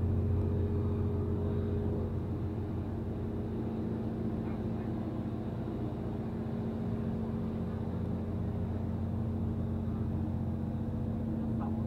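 River cruise boat's engine running with a steady low hum.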